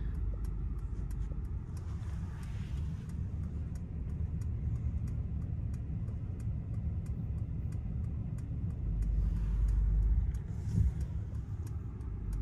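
Cabin sound of a 2021 Mercedes-Benz S-Class creeping at parking speed under its automatic park assist: a low rumble that swells about nine seconds in, with a faint steady ticking about twice a second.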